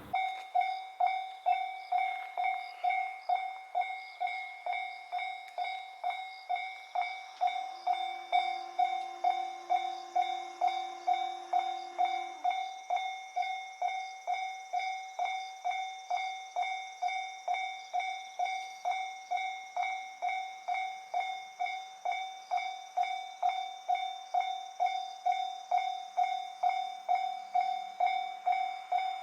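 Japanese railway level-crossing warning bell ringing in an even rhythm of about two strikes a second, signalling that a train is approaching and the crossing is closed.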